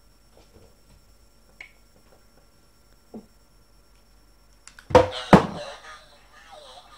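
Quiet room with a few faint small noises, then two loud knocks about half a second apart, about five seconds in.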